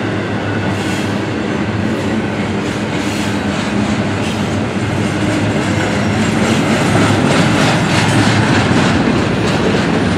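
Double-stack intermodal freight cars rolling past at close range, steel wheels clacking over the rail joints. The clacks come thick and fast in the second half as the last cars go by near the end.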